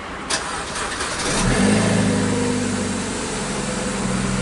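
2006 BMW 316i (E90) four-cylinder petrol engine cold-started after sitting three days. A click and about a second of starter cranking, then the engine catches about a second and a half in, flares up and settles into a steady idle through its modified exhaust.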